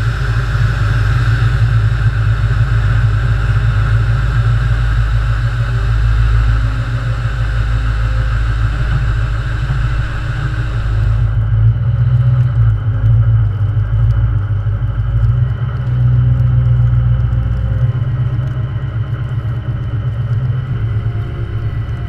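LML Duramax 6.6-litre V8 turbodiesel running with a steady low rumble. For the first eleven seconds a steady higher whir sits over it and cuts off suddenly, after which the engine runs on alone.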